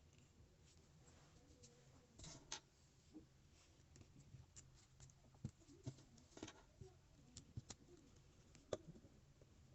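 Faint, irregular clicks and taps of plastic Lego Technic pieces being handled and pressed together, the sharpest click about three-quarters of the way through, over a low steady hum.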